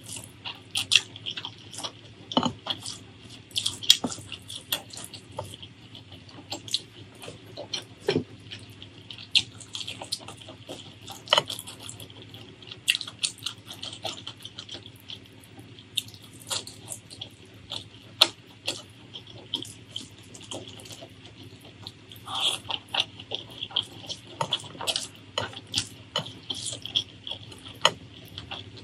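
Wet eating sounds: fingers squishing and mixing rice with curry, with many short, sharp, sticky clicks and smacks.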